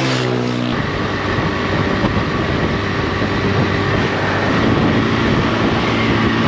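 Motorcycle engine running steadily at cruising speed, heard from the rider's seat with wind and road noise rushing over the microphone; it starts abruptly just under a second in.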